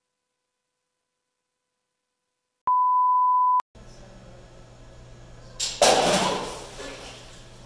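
A steady high beep lasting about a second, then, a few seconds later, a sudden loud crash that dies away over a second or so: the student-built robot toppling over onto a tile floor.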